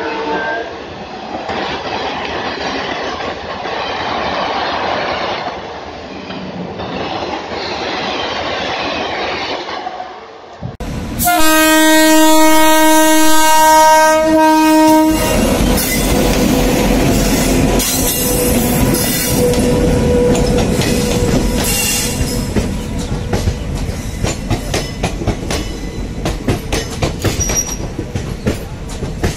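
Train passing with steady wheel and rail rumble, then, after an abrupt change about eleven seconds in, a train horn sounds one held tone for about four seconds, followed by a train rolling by with loud rumble and rapid clicking of wheels over rail joints.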